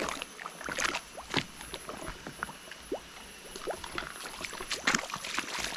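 Footsteps on the wooden plank deck of a rope suspension bridge: irregular light knocks and clicks, with a few faint short squeaks.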